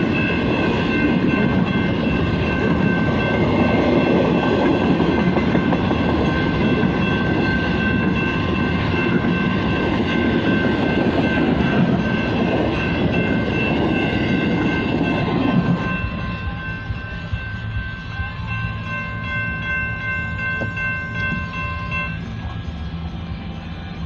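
BNSF double-stack freight train rolling past, its wheels on the rails making a loud, steady rumble. The rumble drops off sharply about sixteen seconds in, leaving a fainter rolling sound. A few thin, steady high tones ring over it until a couple of seconds before the end.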